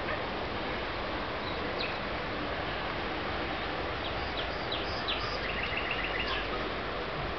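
Small songbird calling over a steady outdoor hiss: a few short, high chirps about four seconds in, then a quick run of about eight short notes.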